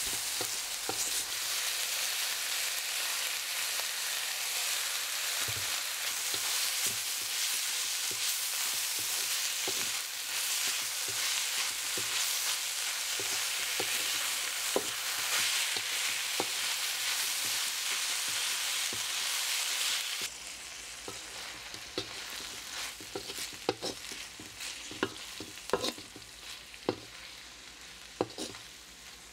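Shredded chicken, spring onions and chillies sizzling in a hot metal wok while a spatula stirs and scrapes them against the pan. About two-thirds of the way through, the sizzle drops away abruptly and the spatula's clicks and scrapes on the metal stand out.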